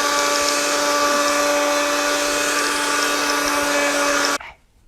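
WMF electric blender motor running steadily at high speed, mixing fruit, then switched off and cutting out suddenly near the end.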